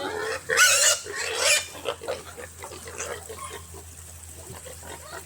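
Pigs squealing: two loud squeals in the first two seconds, then quieter grunts and shuffling.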